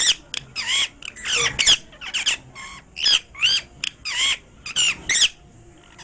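Rose-ringed parakeet chattering: a quick run of about a dozen short, high-pitched squawky calls that stop a little before the end.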